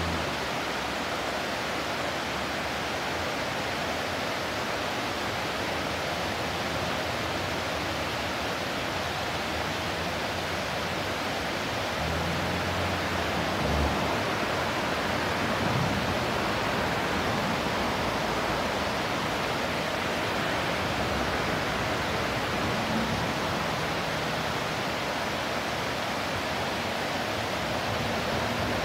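Steady rushing of river water flowing.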